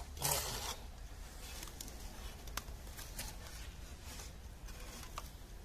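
Faint handling noises from a rag wiping and rubbing on a plastic intake manifold, with a short rustle just after the start and a couple of light clicks later on.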